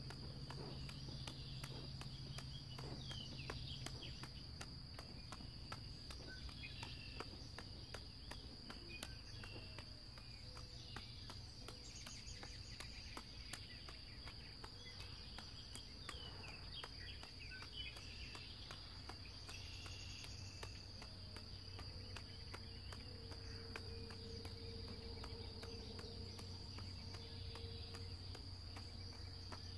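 Steady high-pitched drone of crickets, with birds chirping now and then and faint light clicks throughout.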